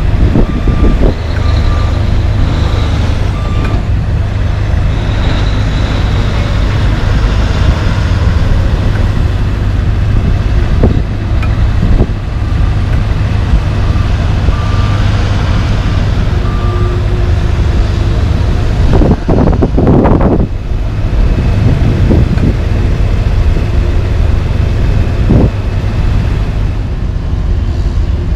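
Heavy diesel truck engine running as a Kenworth tractor pulling a lowbed trailer moves through an intersection. A backup alarm beeps in short series near the start and again about halfway, and the noise swells briefly about two-thirds of the way in.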